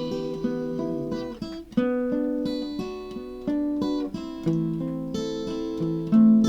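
Acoustic guitar playing an instrumental passage without singing, a string of distinct notes each struck and left ringing.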